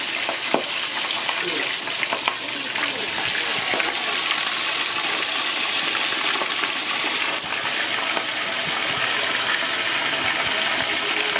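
Chicken pieces frying in hot oil: a steady, dense sizzle with a few small pops.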